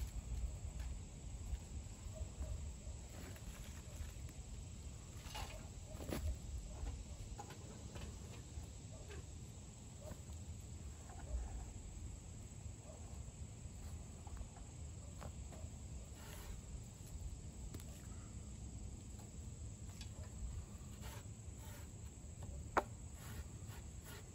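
Light scattered knocks and taps of dry punk wood being handled at a tin-can hobo stove, with one sharper click near the end, over a low wind rumble and a faint insect drone.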